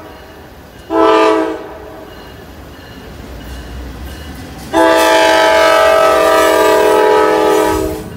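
Norfolk Southern diesel locomotive sounding its air horn for a grade crossing. The horn gives a short blast about a second in, then a long blast from about halfway to near the end, several notes sounding at once, over the low rumble of the passing train.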